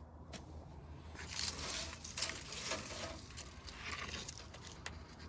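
Debris and old rags being rummaged through and scraped around by hand: uneven bursts of rustling and scraping, with a couple of sharp clicks.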